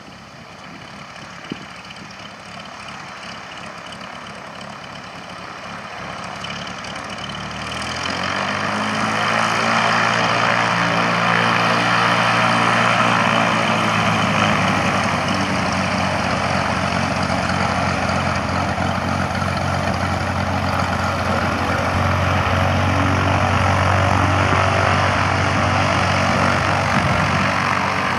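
Cessna 185 Skywagon's six-cylinder piston engine and propeller running at taxi power. It grows steadily louder over the first eight to ten seconds as the plane taxis closer, then holds at a loud, steady drone.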